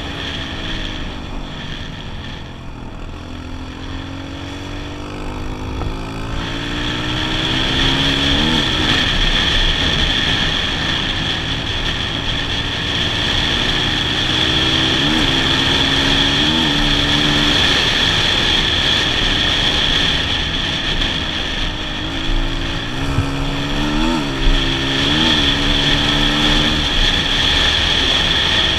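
Kawasaki KLX125's single-cylinder four-stroke engine under way, heard from the rider's helmet. Its pitch falls over the first few seconds, then climbs as it picks up speed, with several quick jumps and dips in pitch later on.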